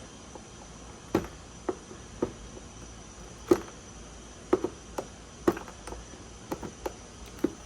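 Irregular sharp clicks and light knocks, about a dozen of them, as hands work the RC boat's motor-wire connectors loose from the speed controller.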